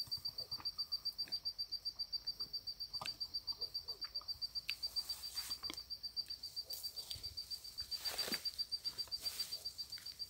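Insect chirping steadily in high, even pulses, about seven a second, with a few short bird chirps scattered over it. A brief rush of rustling noise about eight seconds in.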